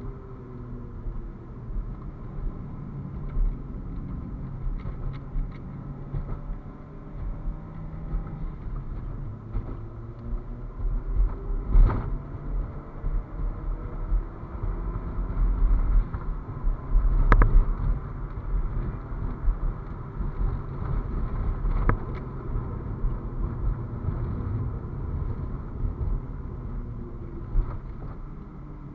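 Toyota Celica GT-Four ST205's turbocharged four-cylinder engine heard inside the cabin while lapping a circuit, its pitch rising and falling with throttle and gear changes. Three sharp knocks are spread through it, the loudest about midway.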